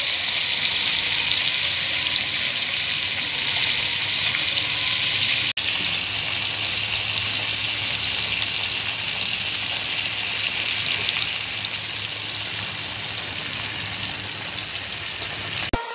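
Whole tilapia frying in hot oil in a pan: a steady oil sizzle, with a brief break about five and a half seconds in.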